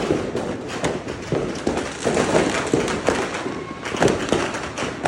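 Fireworks and firecrackers going off in rapid, irregular succession: many sharp bangs and cracks, several a second, overlapping one another.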